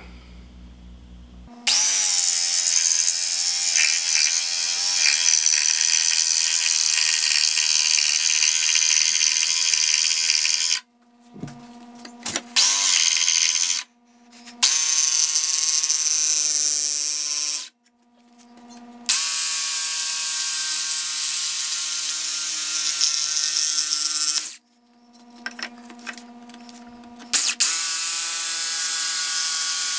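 Ryobi cordless jigsaw sawing through a soft cedar board. It runs in four stretches, the longest about nine seconds, and stops suddenly between them, with a couple of short blips of the trigger in one of the pauses.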